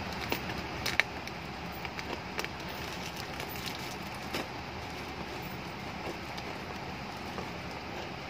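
Scissors snipping and scraping through packing tape on a cardboard box, with crackling tape and scattered short clicks; a sharp click about a second in is the loudest. A steady hiss from an electric fan runs underneath.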